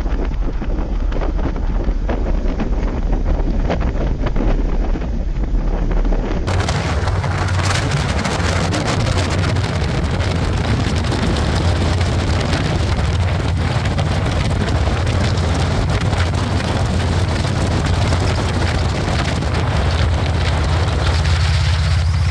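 Motorcycle riding at a steady speed: a low steady engine hum under heavy wind rush on the microphone. About six seconds in the sound changes abruptly, the engine hum steadier and the wind hiss brighter.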